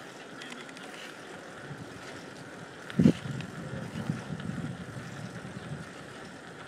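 Bicycle riding heard from a handheld phone: a steady hiss with wind buffeting the microphone, and one sharp thump about three seconds in followed by a couple of seconds of low rumbling.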